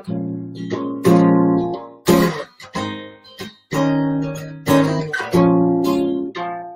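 Acoustic guitar strumming chords about once a second, each chord left to ring and fade.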